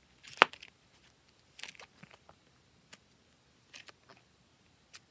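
Plastic photocard sleeves in a ring-binder album being handled and turned, with a sharp click about half a second in, then a few soft rustles and clicks.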